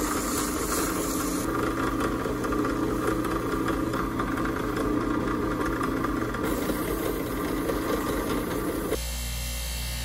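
Drill press running, spinning a small steel pin while sandpaper is held against it, a steady motor sound with the rasp of the abrasive. About nine seconds in it gives way to the steadier hum of a bench buffing wheel's motor.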